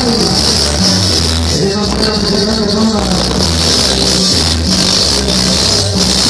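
Loud dance music played through a large sonidero sound system, with a pulsing bass line, a melody and a steady hiss of high percussion.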